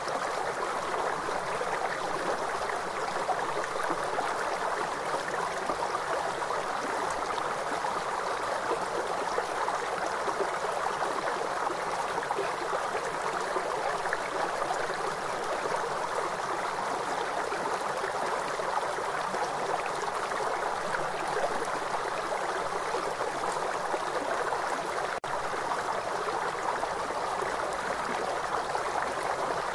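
River water running, a steady even rush with no break except a split-second dropout about 25 seconds in.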